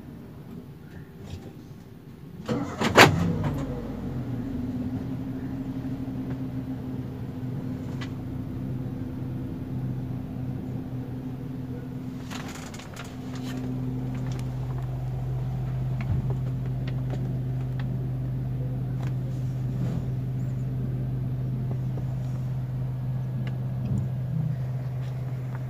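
Toyota Rush engine starting about three seconds in, then idling, heard from inside the cabin. It gives a steady low drone and rumble that grows stronger about halfway through and holds. This is the cabin hum at standstill idle that the owner is complaining of.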